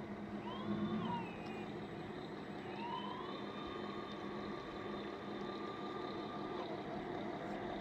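A siren wailing: a short rise and fall about a second in, then a rising wail held steady for several seconds that drops away near the end, over a low steady hum.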